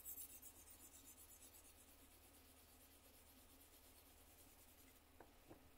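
Faint scratching of a pencil shading on sketchbook paper, with a couple of soft taps near the end.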